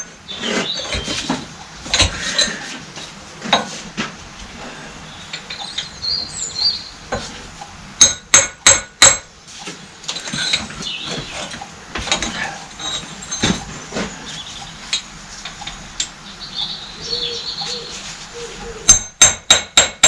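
Hammer striking metal: two quick runs of about four sharp, ringing strikes, one about eight seconds in and one near the end, with lighter clinks and clatter of metal parts and tools being handled between them.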